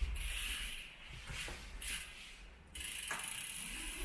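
Bicycle rear freehub ticking as the bike coasts, heard in two spells, with a couple of light clicks.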